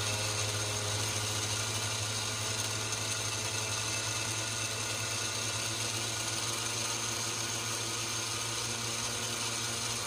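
Countertop blender running at a steady speed, puréeing strawberries into a smooth liquid, then switching off abruptly at the end.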